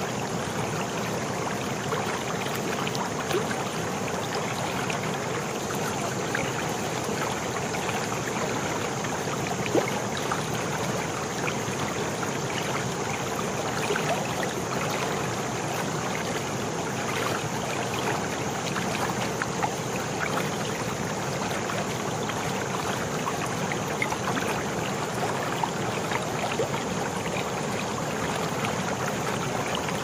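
Muddy rainwater runoff pouring over an eroded earth bank in several small falls and churning in the pool below: a steady, even rush of water with small splashes.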